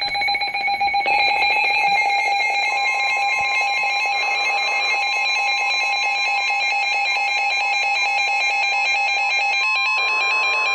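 Emergency alert attention tones: several steady electronic tones sounding together, with a fast warbling tone laid over them from about a second in. A second steady tone joins about three seconds in and holds on after the others stop near the end.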